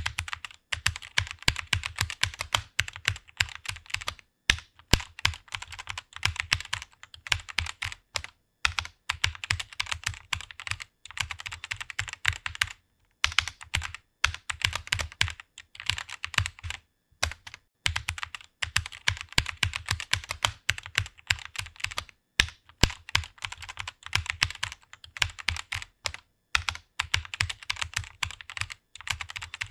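Fast typing on a computer keyboard: a dense run of rapid key clicks, broken by brief pauses every few seconds.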